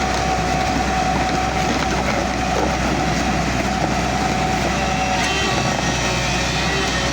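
Excavator running steadily under work: a continuous engine drone with a steady whine over it.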